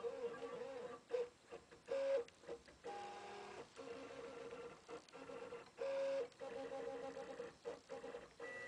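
Stepper motors of a RepRap-style 3D printer whining as the print head travels and lays down plastic. The tone shifts pitch with each short move and breaks off in brief pauses, with a couple of short, louder notes.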